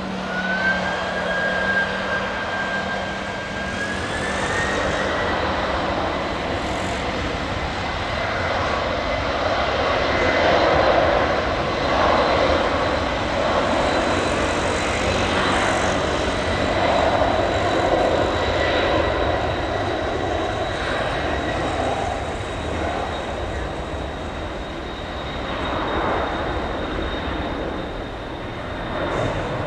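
Jet airliner engines running, with a high turbine whine that steps up in pitch about four seconds in and then holds steady over a rushing engine noise that swells and eases off.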